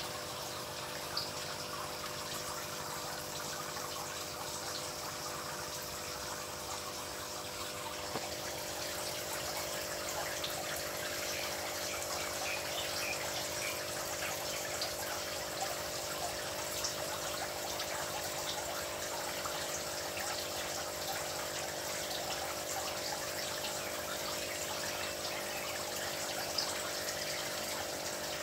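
Water running and trickling in a fish tank, with a steady hum beneath it and small drip-like ticks; the water gets a little louder about eight seconds in.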